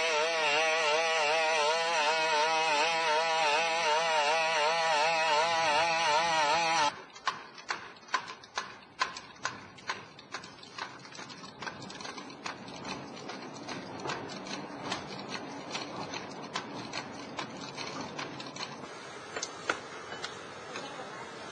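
BigDog quadruped robot's small two-stroke engine buzzing loudly, its pitch wobbling rhythmically with the gait. It cuts off abruptly about seven seconds in. Then a legged robot's feet click sharply and irregularly on a hard floor and on cinder blocks over a steady hiss.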